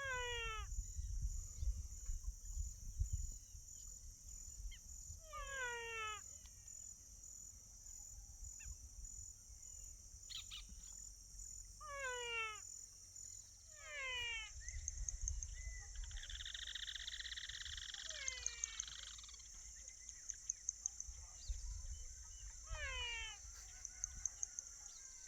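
Countryside ambience: a steady high insect drone, with a short call that slides downward in pitch repeated every few seconds, about six times. There is also low wind rumble on the microphone.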